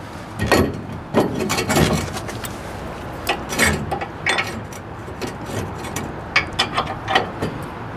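Irregular metal clunks, knocks and scraping from a heavy steel vise being handled and fitted into a truck's hitch receiver.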